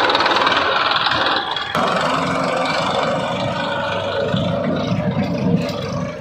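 Heavy diesel engine of earthmoving machinery running steadily, with a sharp click a little under two seconds in.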